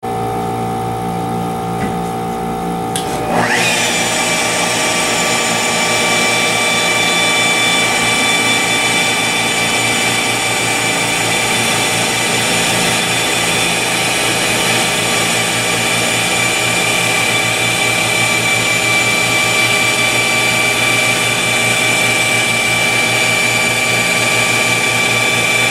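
Flex 12-3 100 wet polisher on a polishing gantry, buffing a quartz countertop with a polishing pad. A lower steady hum gives way, about three seconds in, to a rising whine as the polisher comes up to speed, and it then runs steadily at a high whine.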